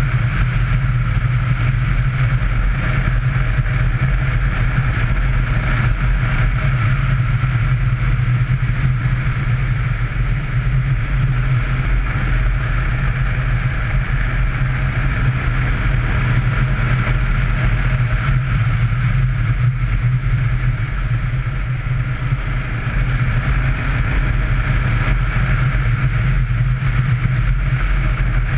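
Yamaha Ténéré motorcycle engine running steadily at road speed: a constant low drone with a steady hiss of wind and road noise above it.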